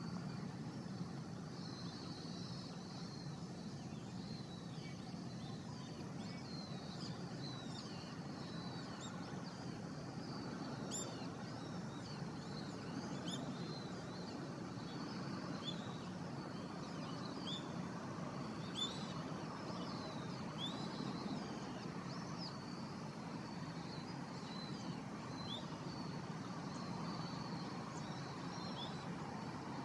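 Small birds chirping again and again in short calls over a steady, low distant rumble.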